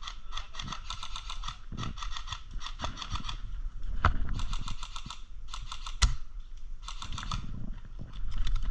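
Airsoft gun firing on full auto in several short bursts of rapid clicking shots, with a couple of sharper single cracks in between.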